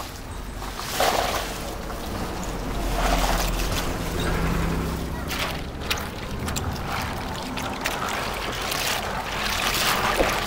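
A basin of apple snails being scrubbed by hand in water: shells clattering against each other and the plastic basin while the water sloshes and splashes. The snails are being rinsed clean before boiling. A low steady hum runs underneath.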